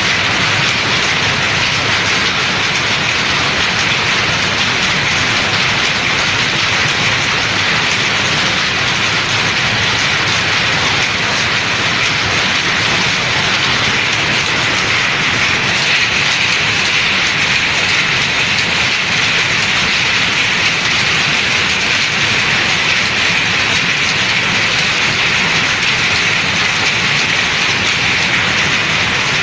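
Textile mill machinery running: a loud, continuous mechanical clatter that stays steady throughout.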